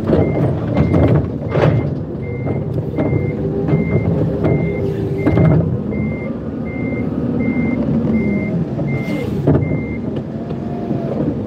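Forklift reversing alarm beeping in a steady single tone, about three beeps every two seconds, over the forklift's engine running; the beeping stops near the end as the machine comes out of reverse.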